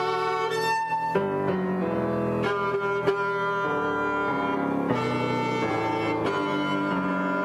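Classical music: a bowed string instrument playing sustained notes with piano, the notes changing every second or so.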